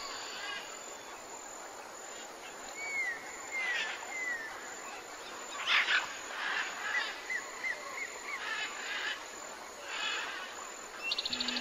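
Birds chirping and calling in short, repeated notes, with a few brief scratchy noises mixed in, the loudest about six seconds in.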